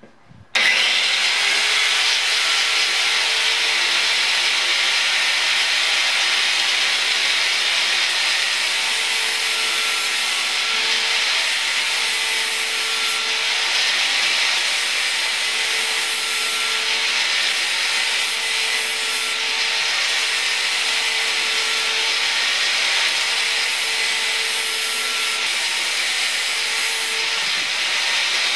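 Small electric angle grinder starting about half a second in and then running steadily, its disc grinding away the staking on the nut of a motorcycle rear shock shaft so the nut can be unscrewed. The grinding hiss stays even, with a faint hum that comes and goes.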